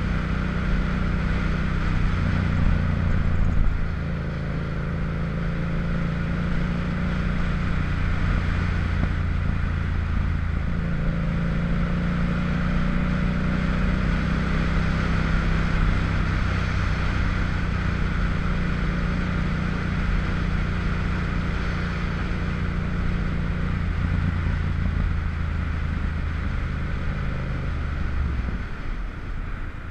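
Motorcycle engine running under way, with a steady rush of wind over it; the engine note steps in pitch a couple of times and falls away near the end as the bike slows.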